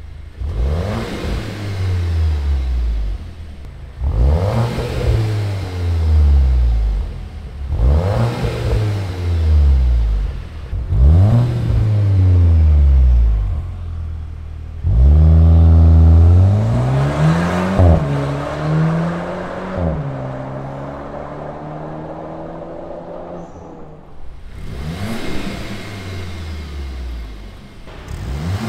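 Skoda Superb 4x4 engine revved through an NBDE stainless-steel cat-back exhaust with its electric valves open: sharp rev blips about every three to four seconds, then a longer rev and pull in the middle that settles to a steadier note. Near the end there are quieter blips with the valves closed.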